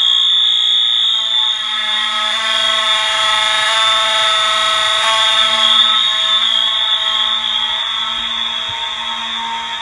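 Fire alarm horns sounding on a continuous signal rather than a temporal pattern: one loud, steady high electronic tone with lower tones layered beneath it and no pauses.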